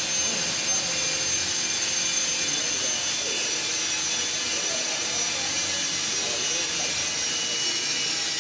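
Steady whir of a laser cutting machine and its fans running, with a thin high whine that slowly sinks a little in pitch.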